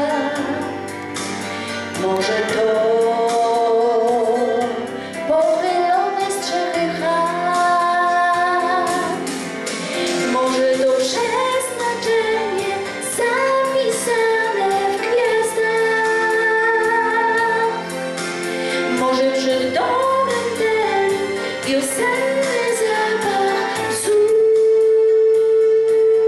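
A woman singing a song in Polish over musical accompaniment. Near the end she holds one long, louder note.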